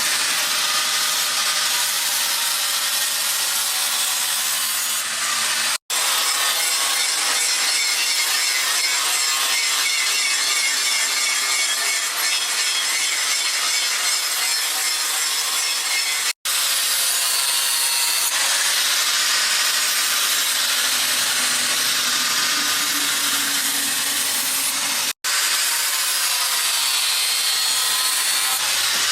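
Continuous abrasive scraping noise, like sawing or rubbing at a workpiece, mostly high in pitch. It breaks off three times for an instant at hard cuts and then resumes.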